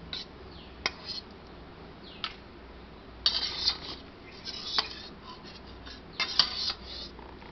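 A metal spoon clinking and scraping against a stainless steel bowl as curd is spooned in: a few single clicks early, then clusters of scraping and clinking about three seconds in, again near five seconds, and once more near the end.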